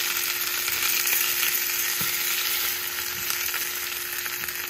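Pork chops sizzling steadily in hot oil in a nonstick frying pan as they brown, with a fork lifting and shifting them in the pan.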